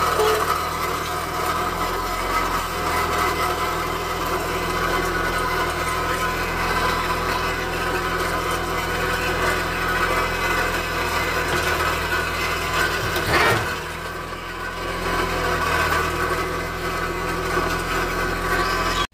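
Mahindra eMax compact tractor's diesel engine running steadily, with a single clunk about thirteen seconds in.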